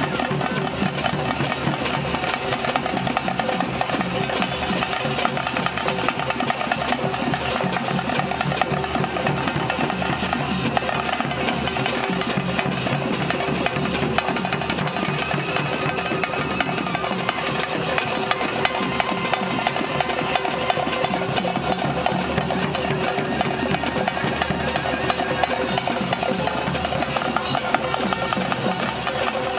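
Music with fast, busy drumming and percussion over a few sustained held tones, at a steady level.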